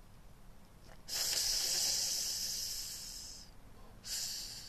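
A man blowing out smoke after a drag, one long hissing breath out that fades over about two seconds, then a shorter puff near the end.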